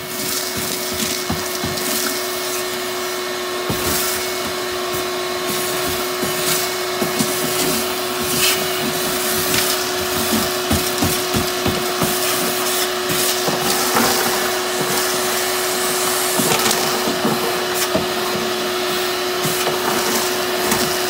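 Shop vacuum running steadily as its nozzle is worked over a rusted steel trunk floor. Grit and debris are sucked up the hose in frequent small clicks and rattles.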